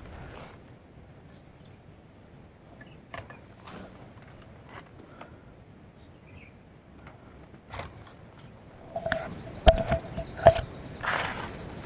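Footsteps and rustling through dry leaf litter and undergrowth, with scattered light clicks; near the end comes a cluster of louder knocks and scrapes, two of them sharp, as the air rifle is handled close to the microphone.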